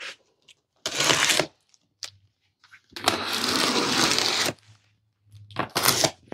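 A knife blade slitting the packing tape along the seams of a cardboard box: three scraping cuts, the longest about three seconds in and lasting about a second and a half.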